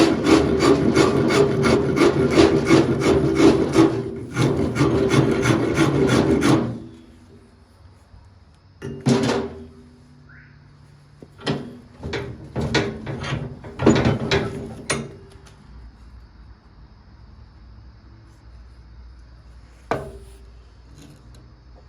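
A file or rasp worked over wood in quick, even strokes, about four a second, stopping about seven seconds in. A few scattered short strokes follow.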